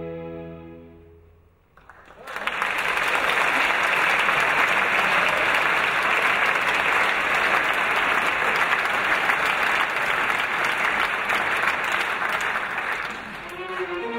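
An orchestra's held chord fades away, then about two seconds in an audience breaks into steady applause. The applause lasts for around eleven seconds and eases off near the end as the orchestra starts up again.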